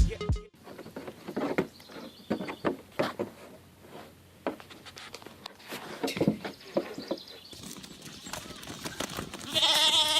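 Hooves knocking and clattering irregularly on hard ground, then a wavering bleat near the end.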